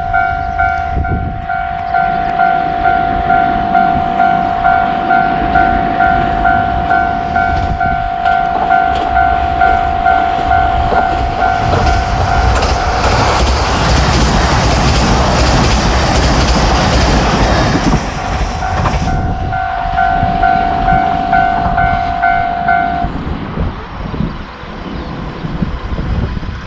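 Japanese level-crossing warning bell ringing its two-tone "kan-kan" about twice a second. About halfway in, a diesel train passes over the crossing for roughly six seconds with loud rushing wheel and engine noise. The bell rings on briefly after the train and stops a few seconds before the end.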